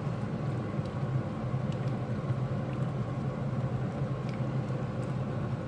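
Steady low rumble of a pot of chicken soup cooking on the stove, with a few faint ticks.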